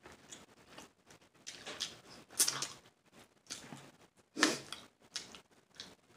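Snow crab legs being cracked and picked apart by hand: a few scattered short crackles and snaps, the loudest about two and a half and four and a half seconds in.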